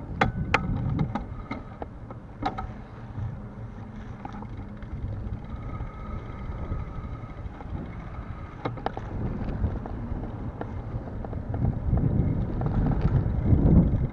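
Bicycle rolling along an asphalt path, its tyre rumble mixed with wind buffeting the handlebar camera's microphone, getting louder near the end. Sharp clicks and rattles from the bike sound several times in the first few seconds and again about nine seconds in.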